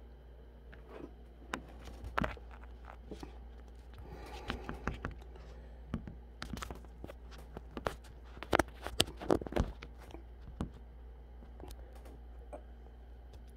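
A person eating: chewing and scattered sharp clicks and knocks of food and utensils, with a quick run of louder clicks about eight to ten seconds in, over a steady low hum.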